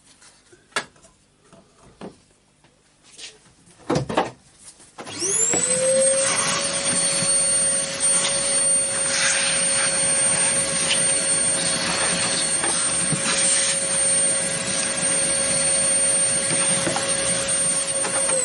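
A few light knocks and clatter from handling parts, then an electric motor switches on about five seconds in, spins up within a second to a steady high whine with a rushing noise under it, and runs evenly before winding down with a falling whine at the very end.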